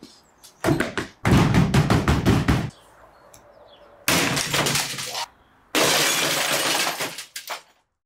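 A Bosch washing machine being smashed: heavy blows on its casing, with crashing and shattering glass, in several separate bursts.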